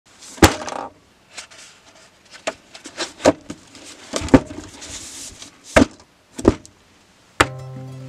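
A spiral-bound sketchbook and pens being set down and handled on a table: several sharp knocks and taps, with paper sliding between them. Plucked acoustic-guitar music starts near the end.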